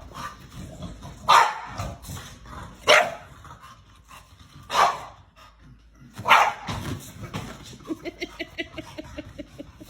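A dog barking: four single, loud barks spaced about a second and a half apart, then a quick run of short, fainter yelps near the end.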